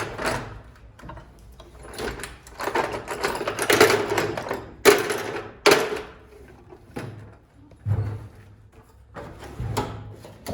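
Tool chest drawers being slid open and handled: a long scraping rattle, then a few sharp knocks as the drawers hit their stops or are shut.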